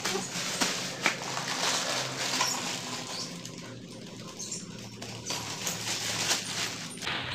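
Plastic packaging crinkling and rustling, with scattered small clicks and taps, as curtain parts are unpacked by hand.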